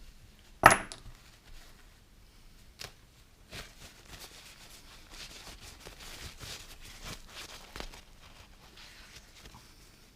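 Small parts handled on a workbench: one sharp, loud clack under a second in, like a hard little piece set down, then scattered light clicks and soft rubbing from wiping and handling the parts.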